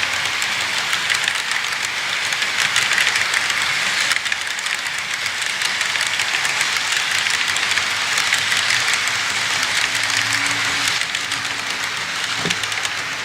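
Rail cars rolling along the track: a steady clatter and rush of wheels on rail with a faint low hum joining in over the second half.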